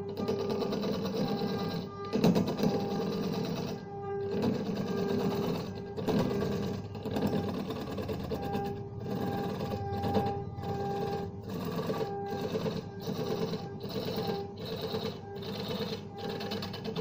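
Motor-driven wood lathe running while a hand-held turning chisel cuts into a large spinning wooden disc, a steady machine hum with a scraping cut that keeps breaking off briefly, about once a second.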